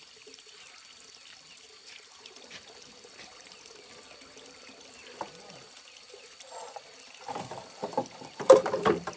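Water pouring and splashing in irregular bursts, faint at first and louder near the end.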